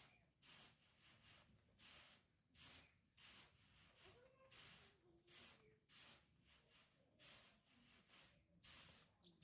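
Faint, rhythmic sniffing by a pet, short airy puffs coming about one and a half times a second.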